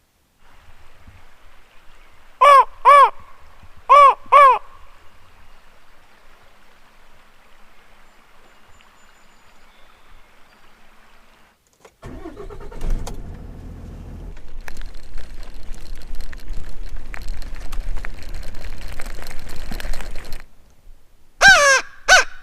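Geese honking loudly, two pairs of calls a few seconds in and more near the end. In between, a truck engine starts with a rising note and runs for about eight seconds before cutting off.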